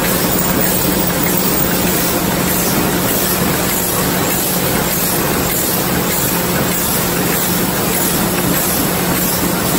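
Hollow brass plug-pin production machine running, fed from a brass strip: a steady mechanical clatter with a constant low hum.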